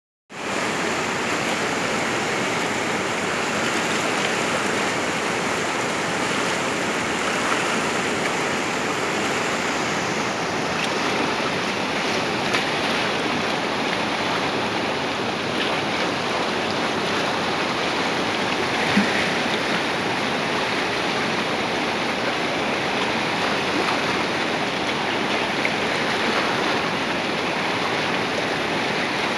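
Whitewater rapids rushing over river boulders: a steady, even roar of water.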